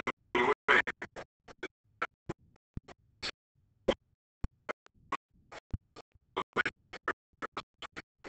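A man's voice at a microphone chopped into many short fragments with dead silence between them, so that it comes across as a stuttering, broken-up glitch rather than intelligible speech: the audio track is corrupted by repeated dropouts.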